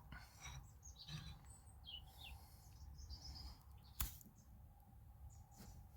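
Near silence with faint bird chirps in the background and a single sharp click about four seconds in.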